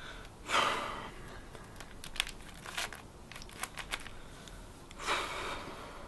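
Plastic Rubik's cube being twisted by hand: a scatter of sharp clicks from quick turns, and two longer rasping bursts, about half a second in and about five seconds in.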